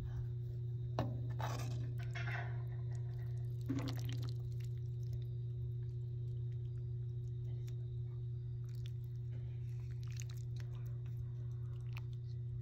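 Metal ladle serving fish stew from a pot into a bowl: a few short clinks and scrapes in the first few seconds, over a steady low hum.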